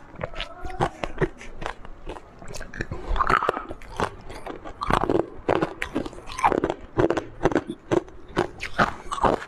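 Chunks of purple-coloured ice being bitten and crunched between the teeth: a quick, irregular series of sharp, brittle crunches as the ice breaks up while chewing.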